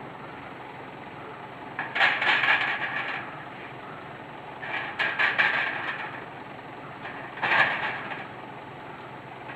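Three bursts of clattering and scraping, each about a second long, as banana bunches are loaded onto the truck's trailer racks. A steady background noise runs under them.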